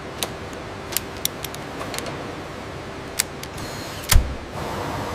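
Steady factory background hum with scattered sharp metallic clicks and clinks, then one heavy thud about four seconds in.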